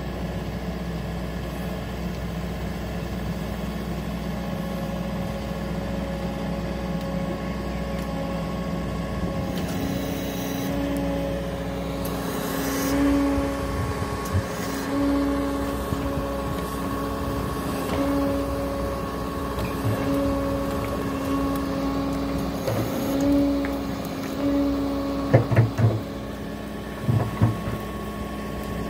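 Menzi Muck M535 spider excavator's diesel engine running steadily, its tone swelling every second or two as the hydraulics take load while the arm and bucket work. A few sharp clunks near the end.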